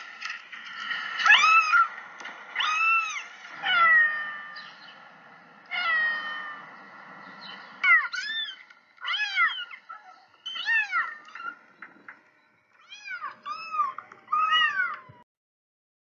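A kitten meowing over and over: more than a dozen short, high-pitched mews, each rising and then falling in pitch, that stop about a second before the end.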